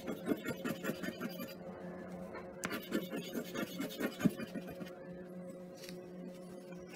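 Scratch-off lottery ticket (Power 10s) being scratched, quick repeated scraping strokes over its coating in two runs, with a pause of about a second between them. A steady low hum runs underneath.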